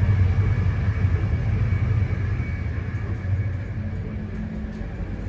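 Passenger train running at speed, heard from inside the carriage: a steady low rumble of the wheels on the track, easing a little in the second half.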